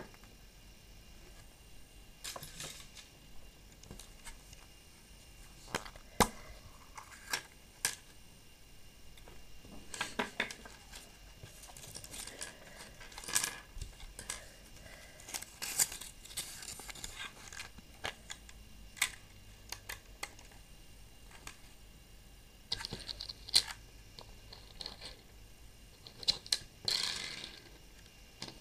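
Hands handling a chocolate surprise egg and its plastic toy capsule: scattered sharp clicks and taps of hard plastic against the table, with short spells of rustling between them.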